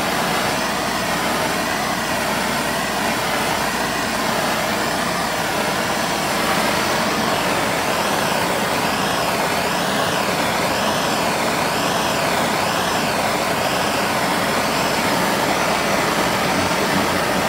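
Hand-held MAPP gas torch flame hissing steadily while it heats a steel part toward bluing temperature. The pitch of the hiss wavers slowly as the flame is moved.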